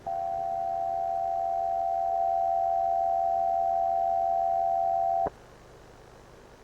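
Emergency-broadcast-style alert tone: one steady, mid-pitched electronic tone held for about five seconds, then cut off abruptly with a click.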